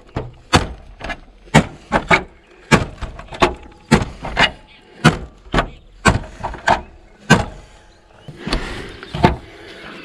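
A Mora Companion HD knife with a Sandvik 12C27 stainless blade is stabbed tip-first through a car's sheet-metal hood again and again. Each strike is a sharp metallic punch, two or three a second, slowing to two last stabs near the end.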